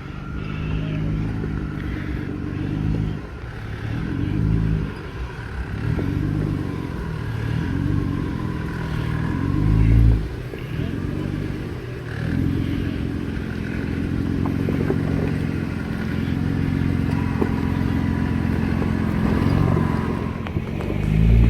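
Jeep engine working at low speed while rock crawling over a rocky climb, revving up and easing off in uneven surges as the rig picks its way over the rocks. There are louder surges about halfway through and again near the end.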